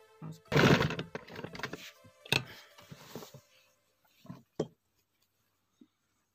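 Cloth rustling as a cotton garment and its collar band are shifted and lined up under a sewing machine's presser foot, loudest about half a second in. A few short clicks and knocks follow.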